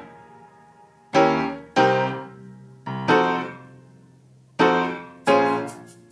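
Background music: keyboard chords struck about five times, each ringing out and fading before the next.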